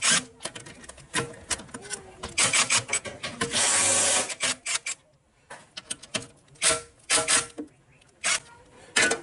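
Cordless power tool run in a series of short bursts, backing off the bolts on top of a Toyota hybrid inverter cover, with the longest burst about a second long around the middle.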